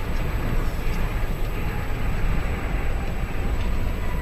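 Steady low rumble of a car's tyres and engine heard from inside the cabin while it drives along a highway.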